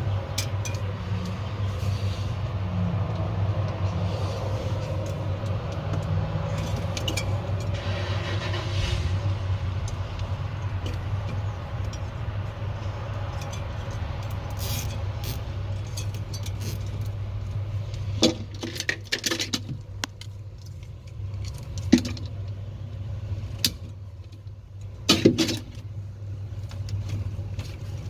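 A steady low hum, with a run of sharp clicks and knocks in the second half as parts and tools are handled during the repair.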